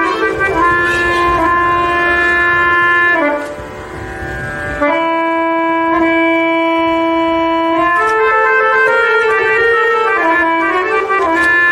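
Hindustani classical music: a harmonium sounding long, steady held notes and chords over tabla. About five seconds in, the tabla drops out for roughly three seconds while one note is held, then comes back in.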